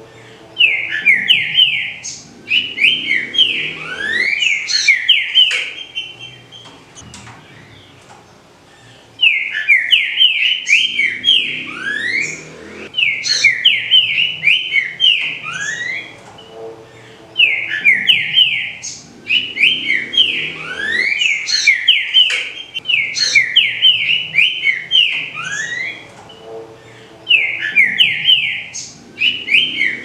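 Green-winged saltator (trinca-ferro) singing: loud phrases of quick whistled notes, repeated every few seconds, with a longer pause a few seconds in.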